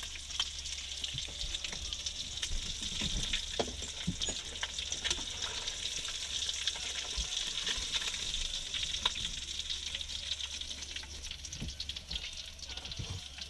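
Fish frying in hot oil: a steady sizzle with many small crackles and pops, over a steady low hum.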